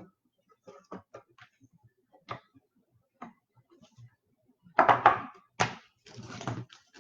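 Light clicks and rustles of cards and stiff plastic being handled, then louder rustling and scraping about five seconds in: a trading card being worked into a rigid plastic top loader that won't open easily.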